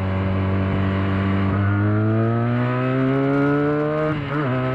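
Benelli 302's parallel-twin engine pulling in gear. Its pitch holds steady, then rises evenly as the bike accelerates, and about four seconds in it drops sharply to lower revs at a gear change.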